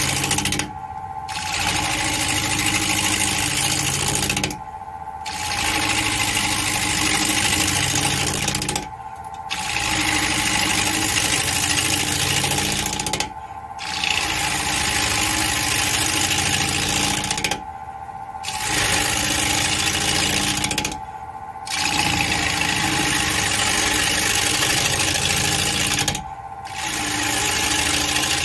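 Wood lathe running with a turning gouge cutting into a spinning black walnut bowl blank, a steady motor tone under a loud scraping hiss. The cutting noise breaks off briefly about every four seconds as the tool comes off the wood, while the motor tone carries on.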